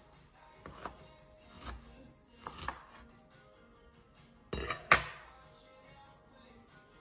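A chef's knife slicing through a bunch of shepherd's purse onto a wooden cutting board: three separate strokes about a second apart, then two sharper knocks on the board a little after halfway, the second the loudest. Soft background music runs underneath.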